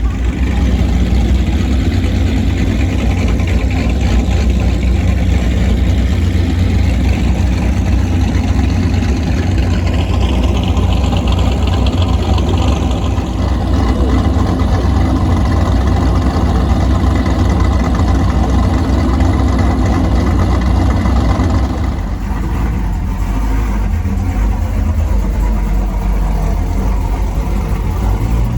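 Modified Pontiac G8 V8 with an aftermarket cam, running with a deep, steady exhaust note. About 22 seconds in the sound eases and the higher part of the noise drops away.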